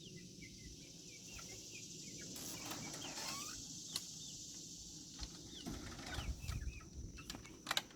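Chickens clucking softly with short high chirps, along with some rustling and a couple of sharp clicks.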